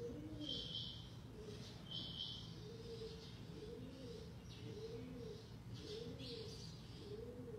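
Caged quail calling: a soft, low, arched call repeated about once a second, with short higher-pitched calls near the start, about two seconds in, and again past the middle.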